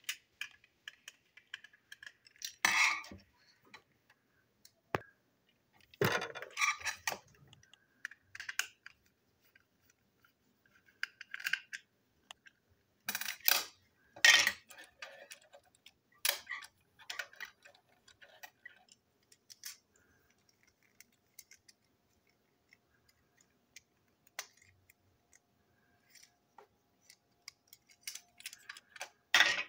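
Small toy railway truck being taken apart by hand on a hard tabletop: irregular clicks, taps and rattles as its body, chassis, screw and coupling hook are handled and set down.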